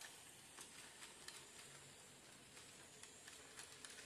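Faint running of an HO-scale model diesel locomotive and its wagon on the track: a soft hiss with a few light, scattered clicks of the wheels on the rails.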